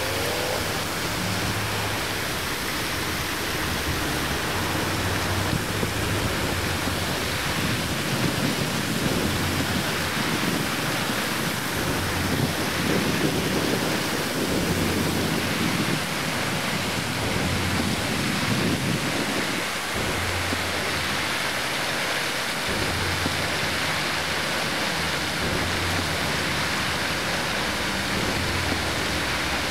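Fountain water splashing and falling in a steady, even rush. A low hum comes and goes underneath.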